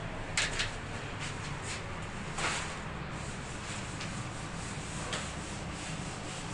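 Short scrapes and light knocks as a glass shower enclosure is worked on by hand, the longest about two and a half seconds in, over a steady hiss and low hum.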